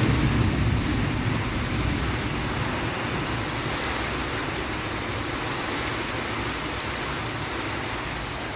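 Heavy rain falling in gusty wind, a steady even rush that eases slightly toward the end.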